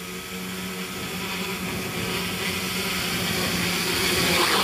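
Homemade tricopter's three electric motors and propellers whirring steadily in low hover flight, growing louder as it comes closer, loudest near the end.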